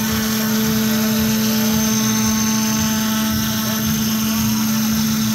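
MultiCam CNC router's spindle running at speed, its bit engraving letters into a board. It makes a steady high whine over a steady low hum, with the hiss of the cut.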